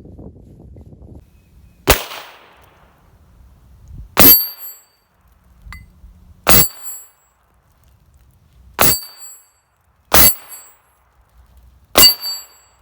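Heritage Rough Rider .22 rimfire single-action revolver fired six times, one shot roughly every two seconds, each crack followed by a brief ringing tail.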